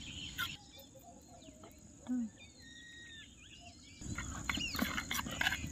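Small birds chirping over a steady high insect drone, with a few short clicks in the last second and a half.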